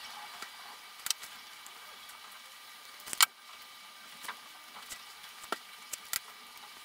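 Scattered small clicks and rustles of a 3D-printed plastic foot being handled and flexible filament being threaded through its holes, over a low steady hiss; the sharpest click comes about three seconds in.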